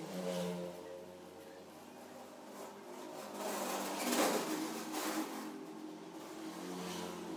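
Soft background music of sustained chords, with a brief rushing, noisy swell about halfway through.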